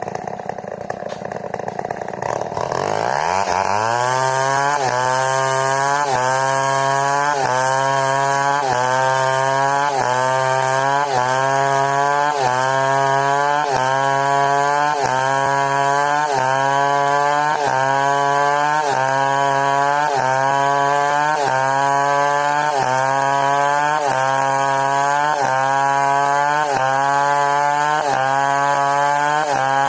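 New West 070 two-stroke chainsaw revved up to full throttle about three seconds in and held there while cutting timber. Its engine note dips and recovers about once a second under the load, then drops off right at the end as the throttle is released.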